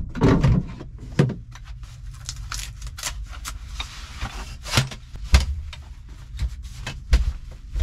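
Gear being handled and set down inside a small truck camper: a scatter of short knocks and clicks with rustling between them, over a steady low rumble.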